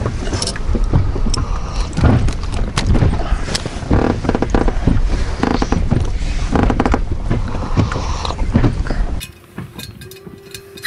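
Close, loud handling noise: rustling, rubbing and irregular knocks as hands take a hook out of a small crucian carp right by the microphone. About nine seconds in it drops off suddenly to a much quieter background.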